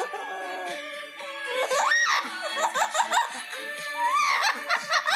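Parrot whistling and chattering, with quick rising and falling whistles and laugh-like squawks, a couple of longer swooping calls near the middle and end, over a pop song playing.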